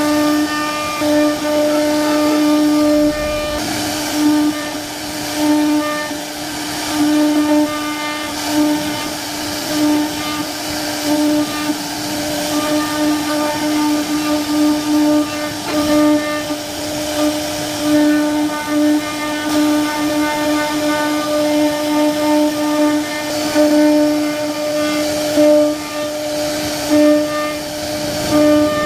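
CNC router spindle carving wood: a steady high whine at one pitch over a hiss of cutting, swelling and easing every second or so as the bit bites and moves along the carving path.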